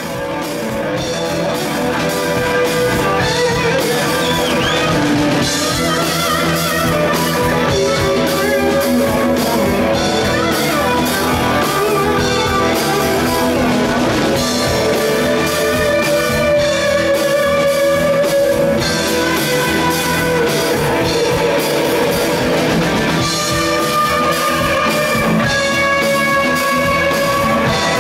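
Live blues rock band playing: an electric guitar takes the lead with wavering, bent notes over drum kit and bass guitar.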